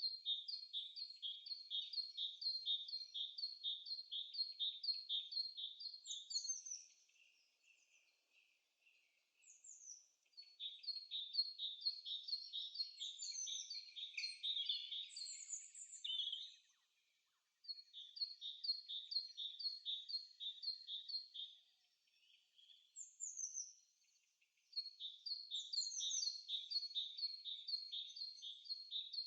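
A songbird singing long runs of short, quick, high chirps, about three a second, each note sweeping downward, with a few pauses of a couple of seconds between runs.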